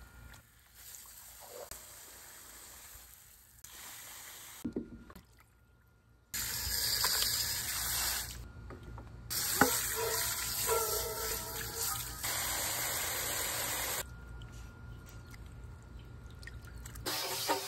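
Garden hose spray nozzle jetting water onto raw duck pieces in a stainless steel bowl, a loud steady rush and splash starting about six seconds in and broken by a few abrupt cuts. Before and after it, only faint sounds of wet meat being handled in the bowl.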